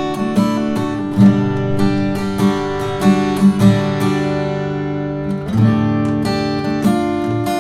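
Custom-built koa-wood acoustic guitar being played: plucked notes and chords over low bass notes, each note ringing on.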